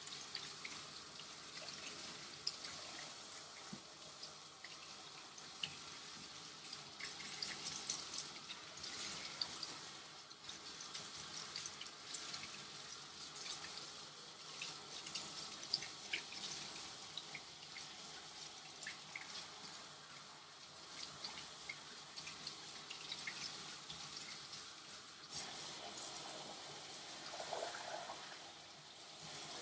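Water spraying from a grooming tub's hand-held hose sprayer onto a wet dog's coat, splashing and dripping into the tub, as the colour shampoo is rinsed out.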